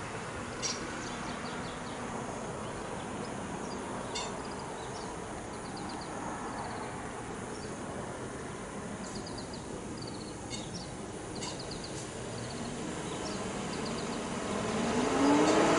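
Steady outdoor background noise with scattered short, high bird chirps and a few brief trills. Near the end it gets louder, with a tone that rises and then falls, like a passing vehicle.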